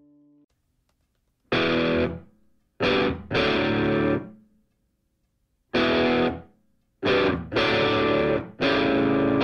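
Background music: distorted electric guitar chords played in short stabs with silent gaps between them, starting about a second and a half in.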